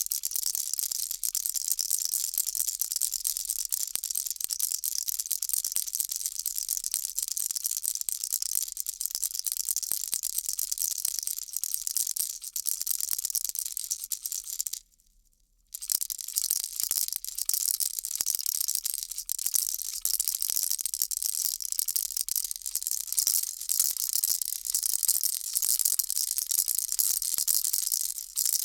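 Baby rattle shaken continuously: a dense, rapid rattling of small beads inside it. It stops for about a second midway, then goes on.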